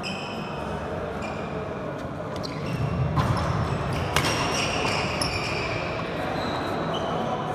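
Badminton rally on a wooden court: sneakers squeaking and footfalls as players move, with a couple of sharp racket strikes on the shuttlecock about three and four seconds in.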